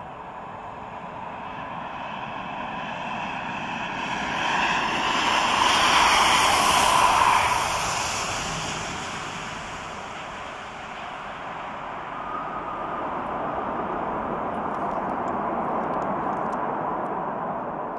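Gulfstream G650ER business jet's Rolls-Royce BR725 turbofans: steady jet engine noise that swells to its loudest about six seconds in, fades, then rises again more gently near the end.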